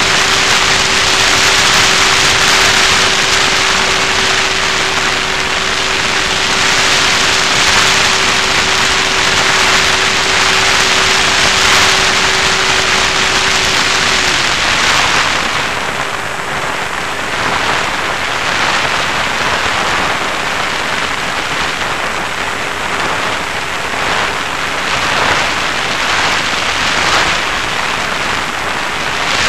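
Onboard-camera audio from an FPV Raptor model plane in flight: a loud, even rush of airflow over the plane and microphone, with a steady hum from the plane's electric motor. About halfway through the hum drops back sharply to a faint trace, as if the throttle were cut back, leaving mostly the wind rush.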